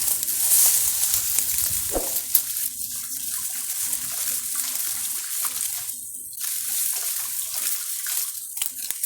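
Water sloshing and rushing around a spearfisher moving in the water.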